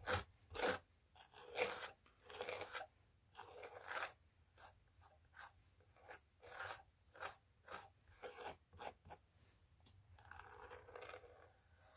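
Fingers brushing loose model-railway ballast grit into place along the track: a run of short, irregular scraping strokes, about one or two a second, turning to a softer, steadier rustle near the end.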